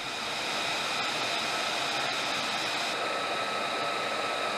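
Steady jet turbine noise from aircraft running on a flight line: an even rush of air with a few thin, steady high-pitched whines over it.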